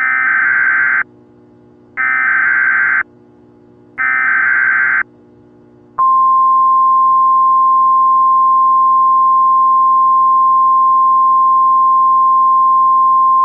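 NOAA Weather Radio emergency alert opening for a tornado warning: three buzzy bursts of SAME header data, each about a second long with a second of gap between them, then the steady 1050 Hz warning alarm tone starting about six seconds in. A faint low hum sits underneath.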